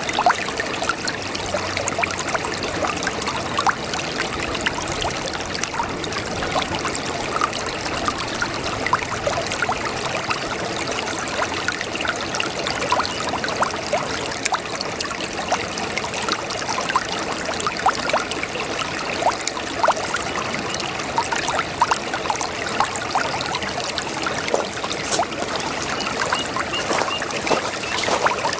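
A babbling brook: water trickling and gurgling in a steady flow, with many small splashes.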